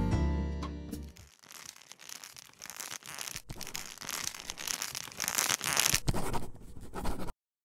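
Bowed-string music fades out over the first second. Then a crackling noise swells and dips in waves, loudest a little before the end, and cuts off suddenly.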